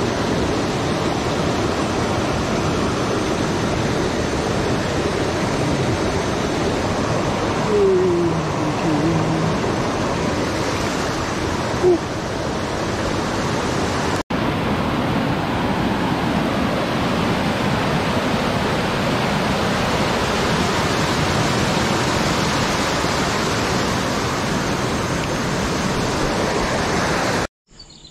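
Shallow rocky stream rushing over stones and small cascades, a steady rush of water. It breaks off for an instant about halfway through and falls away near the end.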